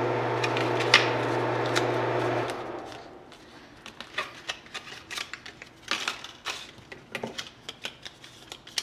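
A steady low hum with a few clicks, which cuts off about two and a half seconds in, then the irregular clicks, taps and crinkles of cardboard-and-plastic inner-tube packaging being pulled apart by hand.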